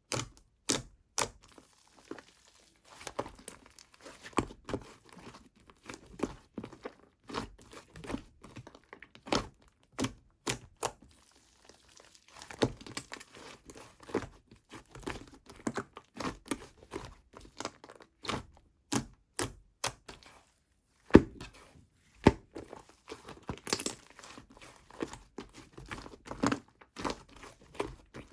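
Hands squishing, stretching and poking a two-layer clay slime: a close run of irregular sharp clicks, pops and crackles, several a second, with a louder snap about three quarters of the way in.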